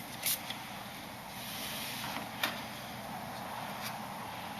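Short hissing squirts of CA glue activator spray, sprayed around a subwoofer's spider so the glue sets faster: one brief squirt just after the start and another about two and a half seconds in, over a faint steady hiss.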